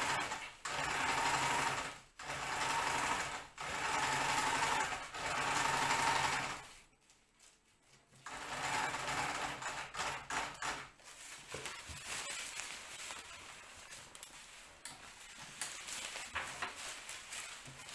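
Domestic sewing machine stitching kite fabric in several short runs of about a second each, with brief stops between them, then stopping for about a second and a half. After that, quieter uneven rustling and clicks.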